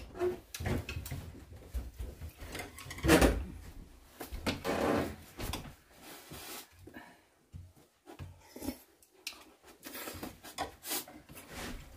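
Two people eating porridge from bowls: spoons and chopsticks clicking and scraping against the bowls, with short slurps and chewing.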